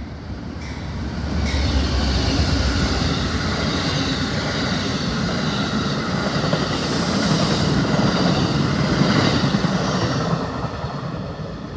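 Amtrak Silver Star passenger train passing at speed, its steel wheels rolling over the rails. The noise swells sharply about a second and a half in, stays loud as the cars go by, and starts to fade near the end.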